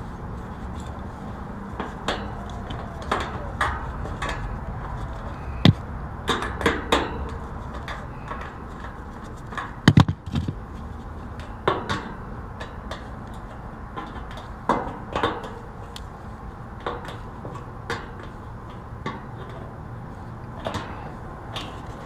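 Scattered metallic clicks and knocks of a hand tool working the screws and fender washers on an AC condenser's top grille, with two sharper knocks about six and ten seconds in, over a steady low background noise.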